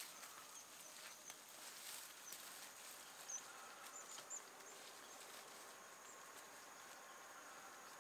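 Quiet rural ambience: a faint, steady, high-pitched insect drone, with a few short high chirps about three to four and a half seconds in.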